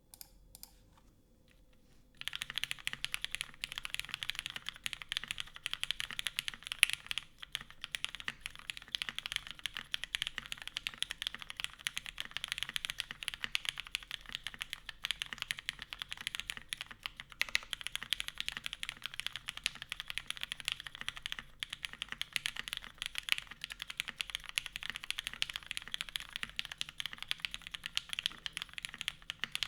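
Typing on a custom mechanical keyboard with lubed, filmed Cherry MX Black linear switches, aluminum plate, O-ring mount and GMK keycaps: a fast, continuous stream of keystrokes. The typing starts about two seconds in.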